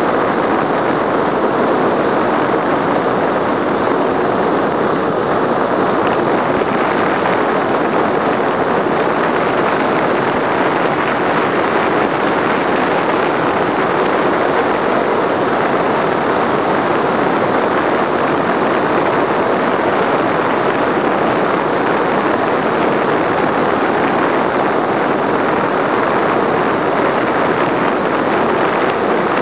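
Steady loud wind rush over the microphone of a camera on a road bicycle descending at around 50 km/h, blended with tyre hiss on asphalt.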